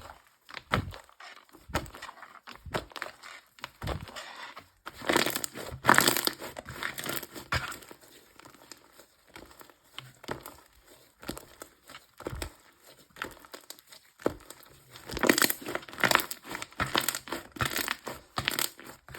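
Dessert slime being squished and pressed by hand, giving a run of sticky clicks and crackling pops, with two busier, louder spells about a third of the way in and near the end.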